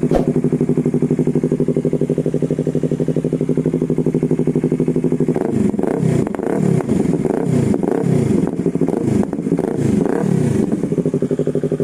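Yamaha R3's parallel-twin engine through an Akrapovic exhaust, idling steadily. About five seconds in it is blipped in a quick run of short throttle revs, about two a second, then it settles back to idle near the end.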